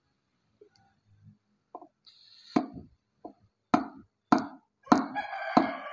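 Hammer blows on a wooden block set on top of a cylinder liner, driving the liner down into an Isuzu Panther 2.5 diesel engine block until it sits flush with the block surface. About five sharp knocks and one lighter one come roughly every half second, starting a little over two seconds in. A long, drawn-out pitched sound rises in the background near the end.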